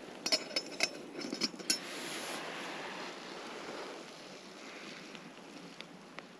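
A metal lid clinking several times against a small camping cook pot in the first two seconds, over steady wind noise.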